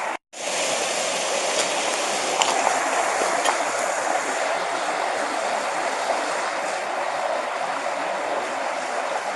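Steady rushing and splashing of a low-flowing waterfall, its flow reduced in a low-water year. The sound cuts out completely for a split second just after the start.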